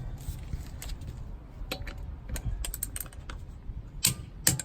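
Gedore Torcofix torque wrench working a wheel lug nut: a run of light ratchet clicks, then two louder sharp clicks near the end as the wrench breaks over at its set torque of 80. Low wind rumble underneath.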